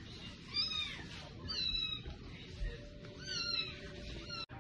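A kitten mewing: three short, high-pitched mews, each falling in pitch.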